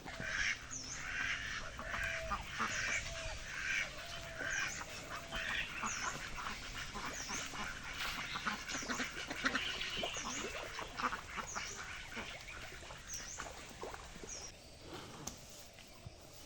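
Birds calling over and over: a run of quacking and a short high chirp repeated about once a second, growing quieter near the end.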